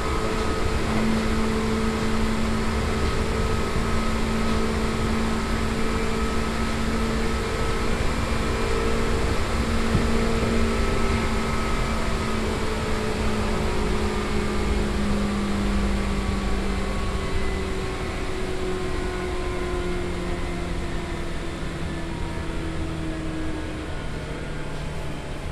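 Seibu 2000 series field-chopper electric train heard from on board: the traction motors' whine, several pitches together, glides slowly down as the train slows, over steady wheel and rail running noise. The motor pitch runs high for the speed, which the recordist puts down to freshly trued wheels.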